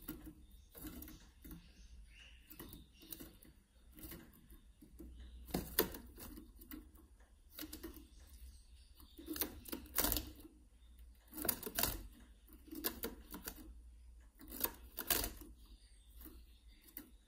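Irregular sharp clicks and taps from caged black-chinned siskins moving about their wire cage and perches, coming in quick clusters every few seconds.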